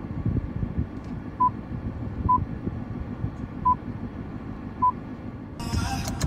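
Four short, single-pitched touch beeps from the Jaguar XF's infotainment touchscreen as on-screen options are tapped, over a steady low cabin rumble. Near the end, FM radio audio starts playing through the car's speakers.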